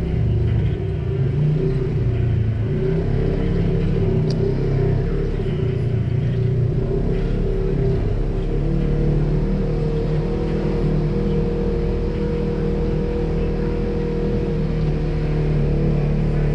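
Polaris RZR side-by-side engine running at trail speed over rough, rooty ground, its pitch rising and falling a little with the throttle. A brief sharp tick about four seconds in.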